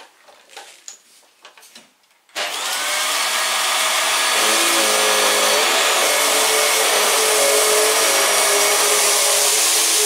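Vax Mach Air Revive upright vacuum cleaner switched on about two seconds in, after a few light clicks. It comes up to a loud, steady run within a second or so, brush bar on and at full suction, as it is pushed over a low-pile rug. A faint wavering hum runs through the noise, and the owner finds the vacuum struggling on the rug at this suction setting.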